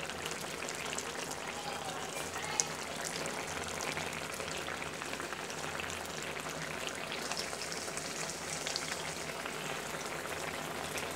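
Fish curry with potatoes and tomatoes simmering in a pan: a steady bubbling and sizzling crackle, with one sharper pop a little over two seconds in.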